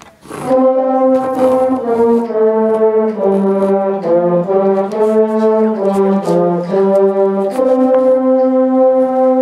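A school band's wind section, brass-toned, playing a slow passage of held notes that step from pitch to pitch every second or so. It comes in about half a second in, right after the count-off, and the last note is held from about three-quarters of the way through.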